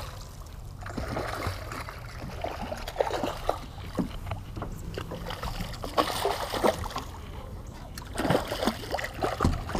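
Water splashing and sloshing at a boat's side as a hooked jack crevalle thrashes at the surface and is grabbed by hand, with irregular splashes and knocks throughout.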